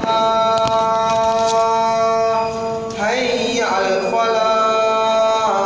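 A man's voice chanting long, drawn-out melodic notes, with a short break and a change of sound about three seconds in and a small drop in pitch near the end.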